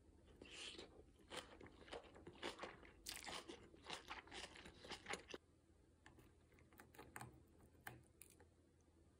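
Close-up, quiet chewing of tofu with kimchi: a dense run of short, wet, crunchy mouth clicks for about five seconds, then a few scattered clicks as chopsticks cut into the soft tofu near the end.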